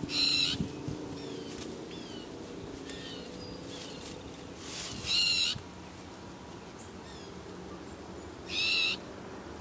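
A bird gives three loud, harsh calls about four seconds apart, calling out to another bird, with faint short falling chirps of other birds between the calls.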